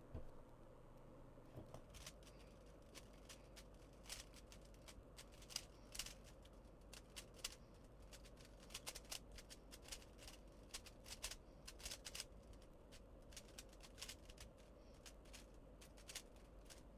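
Rubik's brand cube being turned quickly during a solve: faint, irregular plastic clicks and clacks of the layers snapping round, several a second.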